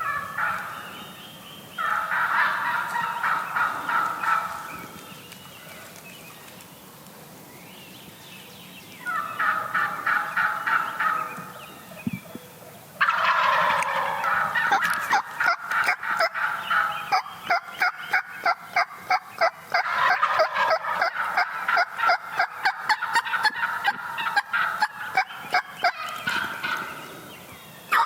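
Wild turkey gobblers gobbling: one gobble about two seconds in, another about nine seconds in, then from about thirteen seconds a long run of overlapping gobbles, with many rapid sharp clicks over it.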